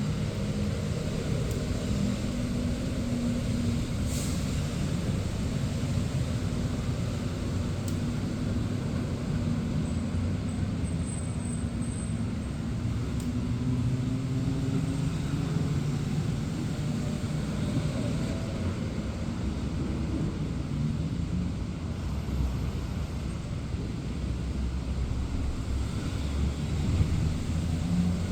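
Steady rain with cars driving past, their engine hum rising and fading as each goes by. There are a few sharp ticks now and then.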